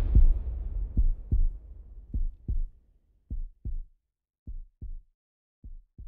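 A deep boom dying away, then a heartbeat sound effect: pairs of low thumps a little over a second apart, growing steadily fainter.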